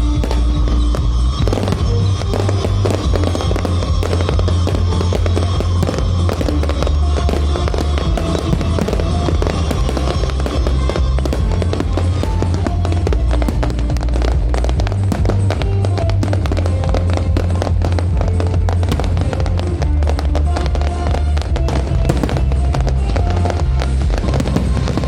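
Aerial fireworks crackling and popping in a dense, rapid barrage, set against loud show music with a heavy bass.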